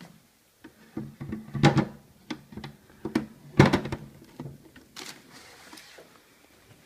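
A string of sharp plastic knocks and clicks from a cordless hand vacuum being handled, not running. The two loudest knocks come about a second and a half in and again near four seconds, followed by a lighter rustle.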